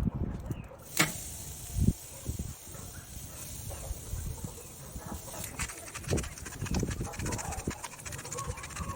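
Steaks sizzling and crackling on a grill, with a sharp click about a second in and low bumps and knocks throughout.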